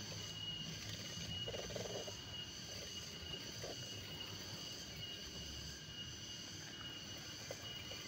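Steady, high-pitched insect chorus, a continuous shrill trill of crickets or cicadas, with a few faint rustles.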